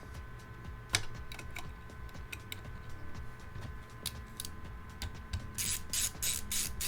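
Small clicks and taps of a motherboard's M.2 heatsink cover being handled and fitted back in place over an NVMe SSD, with a sharp click about a second in and a quick run of clicks near the end.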